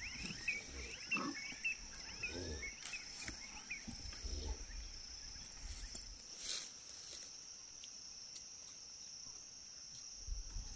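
Steady high-pitched drone of insects, with a flurry of quick high chirps over the first few seconds.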